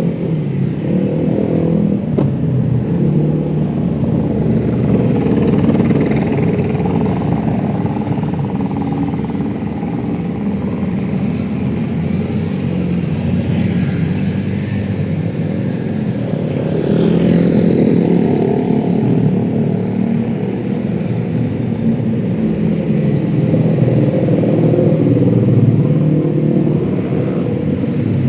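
Busy road traffic of motorcycles and cars passing close by: a steady engine drone that swells as vehicles rev and go past, with a brief higher sliding sound about seventeen seconds in.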